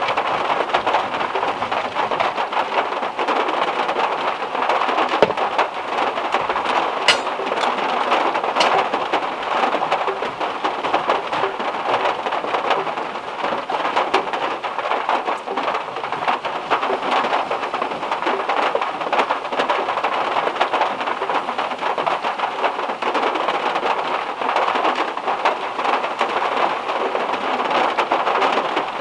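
Heavy rain drumming on the metal roof of a VW Beetle, heard from inside the car as a dense, steady patter like white noise. A couple of sharp clicks stand out about seven and eight and a half seconds in.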